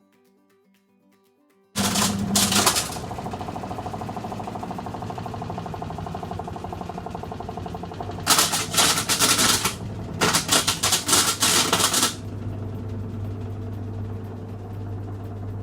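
Haier HWMP55-918 washing machine running with a steady low hum and a fast, loud rattling clatter that starts suddenly about two seconds in and swells in louder bursts twice later on. The rattling is the sign of a coin caught in the drain pump. Faint music is heard before the rattling starts.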